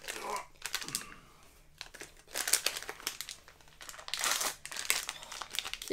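Foil blind-bag packet crinkling and rustling as it is handled and worked open by hand, in three short spells.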